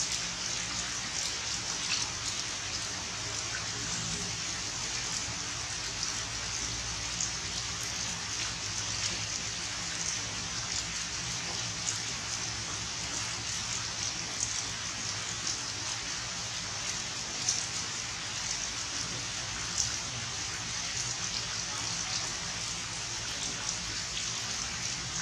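Steady rain falling, an even hiss with many small, irregular drop ticks.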